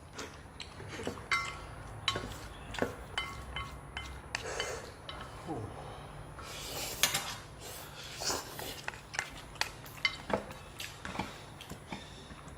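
Spoons and chopsticks clinking and scraping against bowls while spicy instant noodles are eaten: many short, irregular clinks, some with a brief ringing tone.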